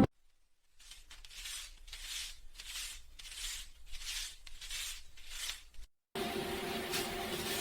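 Paper banknotes being handled: a rhythmic series of about eight papery swishes, roughly one every two-thirds of a second. After a short gap near the end, a steady hiss with a low hum takes over.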